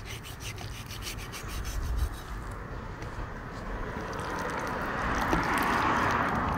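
A knife scraping and rubbing against a cutting board as fat is trimmed from pork, a rough continuous scraping that grows louder about five seconds in.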